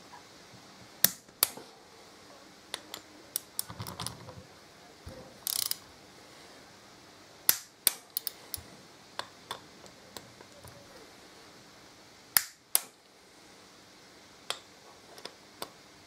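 Click-type torque wrench ratcheting and clicking as the bolts of a Harley-Davidson rear brake caliper are torqued up: scattered sharp clicks and short ratchet rattles, the loudest clicks about a second in, about seven and a half seconds in and about twelve seconds in.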